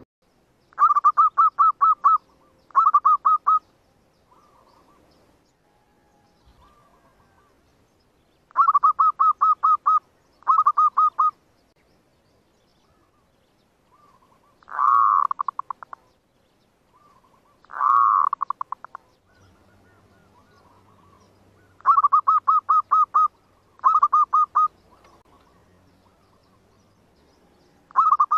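Zebra dove calls: short phrases of rapid, clipped coos, mostly in pairs a few seconds apart, with two longer swelling coos in the middle. This is the cooing used as a lure to draw wild zebra doves to a trap.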